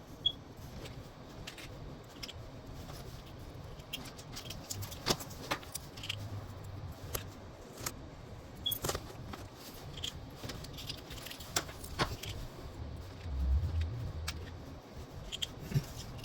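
Scattered small metallic clicks and taps of lock cylinders, keys and pins being handled during rekeying, irregular and a second or so apart, over a faint background hiss.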